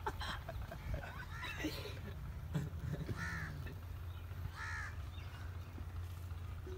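Crow cawing: a few short, harsh calls, the two clearest about a second and a half apart, over a low steady rumble.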